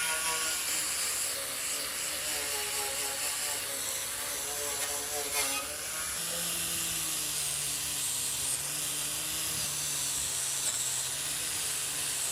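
A power tool's electric motor running steadily, its pitch wavering as it is loaded and settling lower about halfway through.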